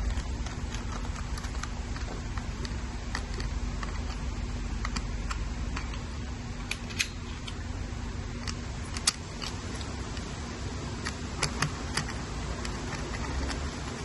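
Small clicks and taps of a screwdriver working the screws of a replacement key lock into an e-bike battery's plastic end housing, scattered, with a few sharper clicks in the second half. Under them runs a steady low rumble.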